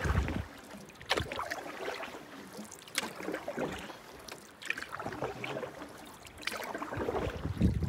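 Canoe paddle strokes in lake water, a short splash and drip about every two seconds. Wind rumbles on the microphone for the first half second.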